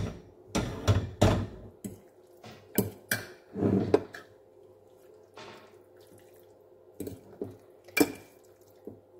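Metal spoon scraping and clinking against a ceramic baking dish while spreading thick béchamel sauce over cauliflower, in irregular wet taps and scrapes. They come thickly in the first four seconds, with a few more spaced out later.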